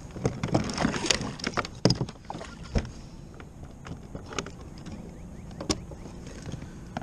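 A netted musky splashing in the landing net beside a plastic kayak, mixed with knocks and clunks of gear against the hull. The splashes and knocks come thick in the first two or three seconds, then thin out to scattered clicks and splashes.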